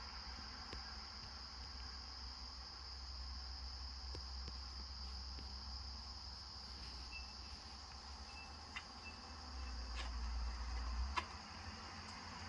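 Crickets singing in a steady, continuous high-pitched chorus, with a few short high chirps past the middle and a couple of sharp clicks near the end.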